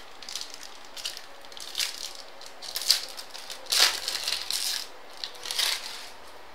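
Baseball trading cards and their crinkly pack wrapping being handled and flipped through: a run of short, uneven rustles and crinkles, loudest about four seconds in.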